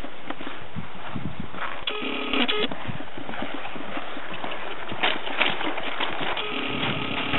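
Hoofbeats of a horse loping on grass, under a steady background hiss. Twice, about two seconds in and again near the end, a short pitched beeping tone sounds over it.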